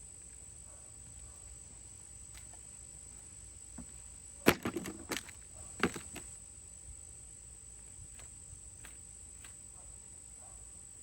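A few sharp knocks and clacks in a short cluster about four and a half seconds in, the first the loudest, over a quiet background with a steady thin high-pitched tone.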